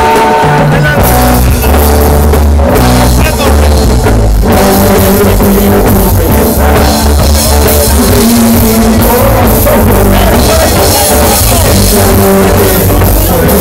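Live rock band playing loud: electric guitar, bass and drums, with a man singing.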